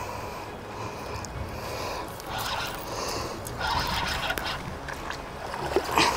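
Shimano Saragosa spinning reel being cranked against a hooked jack crevalle, scraping and whirring in short spells as line is won back, over a steady rumble of wind on the microphone.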